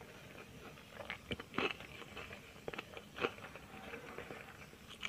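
Close-miked chewing and crunching of food in the mouth, with a few short crisp bites in two clusters about a second in and about three seconds in.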